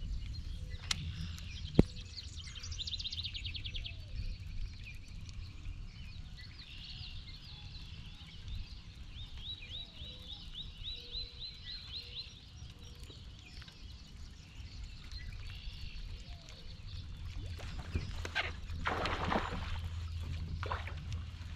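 Wild birds calling and singing: a rapid trill, then a run of quick repeated chirps, over a low steady rumble. One sharp click stands out about two seconds in.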